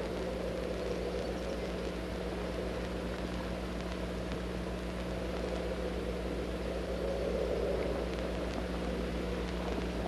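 Steady low drone with hiss and a low electrical hum, swelling slightly about seven seconds in.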